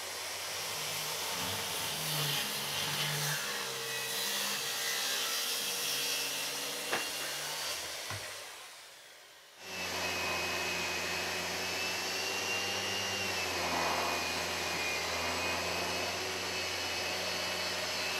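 Handheld circular saw cutting across the end of a maple slab, dying away about nine seconds in. Then a random-orbit sander with a dust-extraction hose runs steadily, sanding the slab's surface.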